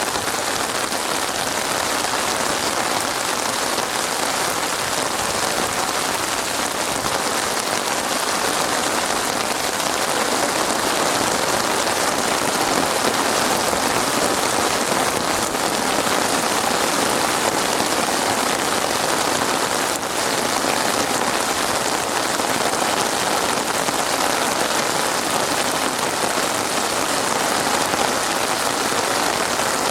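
Steady rain falling and pattering on a surface, an even unbroken hiss with no thunder.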